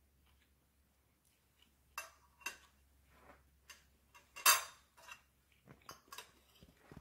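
Cutlery clinking and tapping against a plate in a handful of sharp separate clicks, the loudest about four and a half seconds in.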